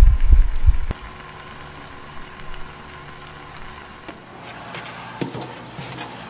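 Earthenware pot of cheonggukjang stew boiling hard, heard as loud low bubbling throbs for about the first second, then cutting to a faint steady hum. From about four seconds in, a few sharp clinks of metal tongs against stainless steel side-dish trays.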